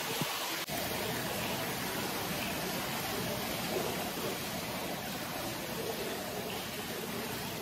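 Steady, even rushing noise with no distinct events, dipping briefly about a second in.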